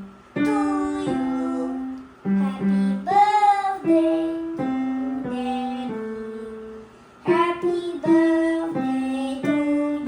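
A child singing a slow melody in held notes, with acoustic guitar accompaniment.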